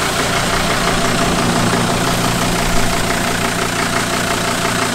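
Volvo Penta D3 marine diesel engine running steadily, heard up close with the engine compartment open. It is being checked after it would not rev past about 1440 rpm, and the owner finds nothing wrong with the engine itself.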